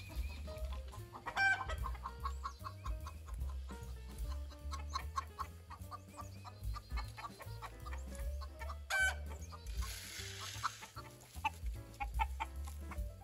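A flock of backyard chickens clucking steadily as they crowd around for treats, with two louder squawks, one about a second and a half in and one near nine seconds. There is a brief rustle just after the second squawk.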